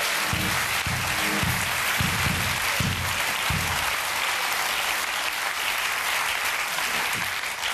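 Studio audience applauding steadily, fading out near the end. The house band plays a short run of low notes over the first few seconds, about seven in all.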